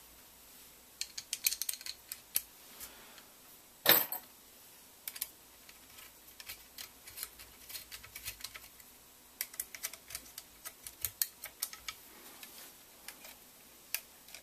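Small metal parts of a gun rail mount clicking, tapping and clinking in irregular clusters as Allen screws and mounting hardware are handled and fitted, with an Allen key working a screw near the end; one louder, sharper clack about four seconds in.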